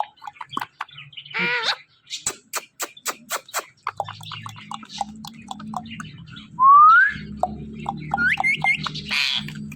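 Pet parrots whistling and chirping: a wavering call early on, a run of short sharp clicks, scattered chirps, then a loud rising whistle about two-thirds of the way in and a harsh screech near the end.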